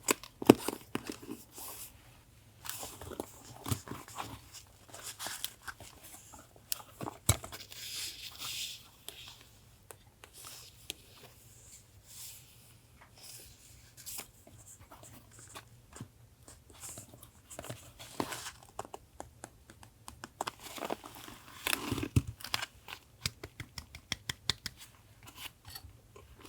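Paper being handled for a collage journal: irregular rustling, crinkling and tearing with many light clicks and taps, busiest in two flurries in the second half.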